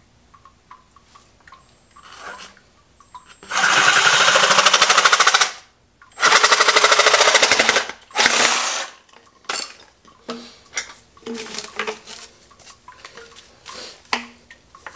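Reciprocating saw (Sawzall) cutting through PVC pipe in two runs of about two seconds each, starting about a third of the way in, with a short third run just after. Then scattered light knocks as the cut pipe is handled.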